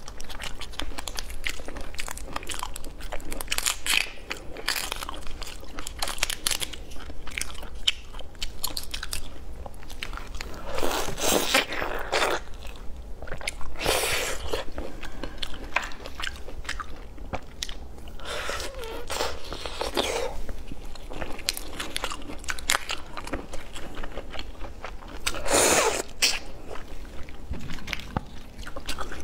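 Cooked red shrimp being peeled and eaten, picked up by a clip-on microphone: many small clicks of shell cracking and being pulled apart, with crunching bites and chewing. A few louder, longer bites stand out about 11, 14, 19 and 26 seconds in.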